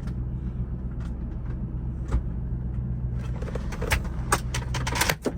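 2002 Lincoln Navigator's 5.4-litre four-valve V8 running steadily, a low hum heard from inside the cabin. In the last two seconds a run of small clicks and rattles as a charger cable is fumbled into its socket.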